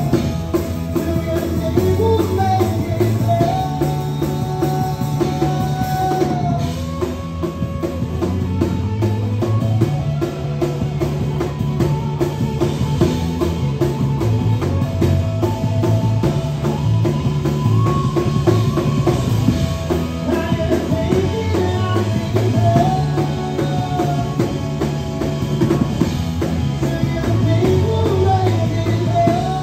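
Live rock band playing a song: acoustic guitar, electric guitar, electric bass and drum kit with a steady beat and sung vocal lines.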